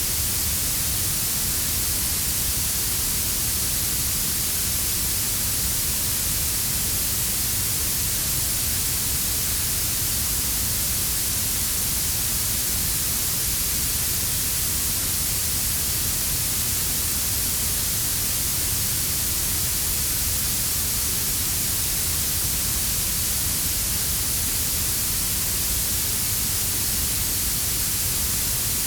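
Synthetic blue noise layered over a quieter brown noise: a steady, unchanging hiss strongest in the treble, with a low rumble underneath.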